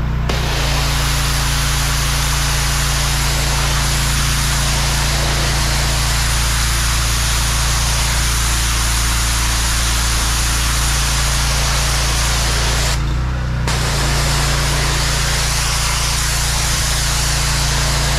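Pressure washer's engine running steadily under the loud hiss of its high-pressure water jet blasting concrete pavers. The spray cuts out for about half a second around 13 s in as the trigger is released, then resumes.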